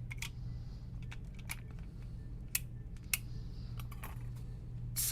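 Scattered light clicks and taps of small plastic parts of an opened PS5 controller being handled and fitted during reassembly.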